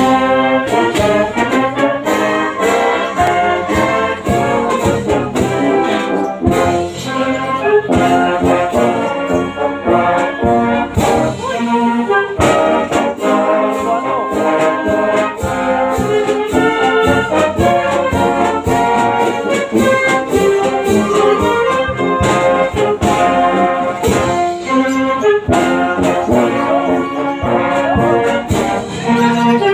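A brass band plays a tune loudly on trombones, trumpets and baritone horns, with a bass drum and snare drum keeping a steady beat.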